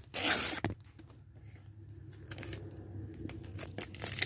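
Paper sticker sheets rustling and crinkling as they are handled, with one loud crinkle about half a second long at the start and faint handling clicks after it, over a faint low hum.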